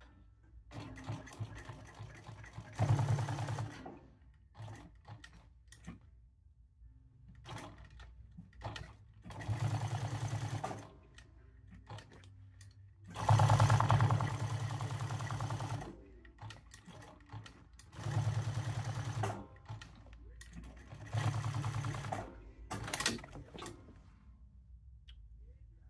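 Jack S5 industrial post-bed sewing machine stitching a leather patch onto a hat in about five short runs of rapid stitching, stopping between them while the hat is turned. The longest and loudest run is about halfway through. Small clicks and handling sounds fill the gaps, and the stitching stops a couple of seconds before the end.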